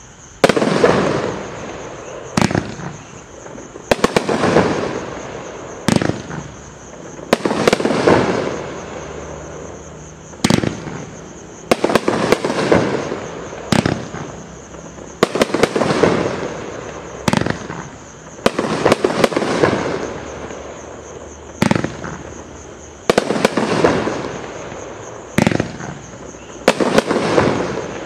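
FB-5078 500-gram, 27-shot, 1.2-inch sky bomb firework cake firing shot after shot, a sharp report every one to two seconds, each followed by a rushing noise that swells and fades over about a second.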